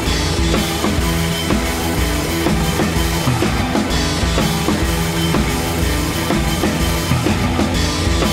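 Rock music with a steady drum-kit beat and bass.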